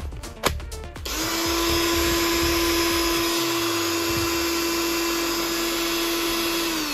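A battery pack clicks onto a brushless cordless hammer drill, then about a second in the drill runs with no load at a steady high speed, whining evenly for nearly six seconds before it winds down at the end.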